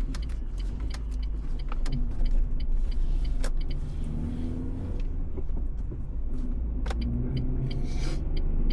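Car interior noise: a steady low engine and road rumble, with a pitch that slides up and down a little, and scattered small clicks and knocks.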